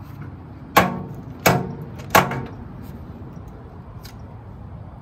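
A steel post hole digger knocked three times against a wheelbarrow to shake out the dirt, each strike a sharp clank with a brief ringing tail, about two-thirds of a second apart.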